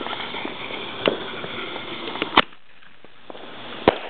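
Firecrackers going off: a few sharp pops, the loudest about two and a half seconds in and another near the end.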